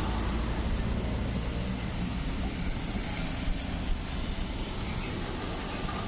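Steady outdoor background noise, an even hiss over a low rumble, with two short high chirps about two and five seconds in.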